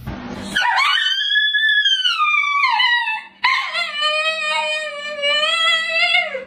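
A dog howling in two long, wavering calls, the second lower and steadier than the first.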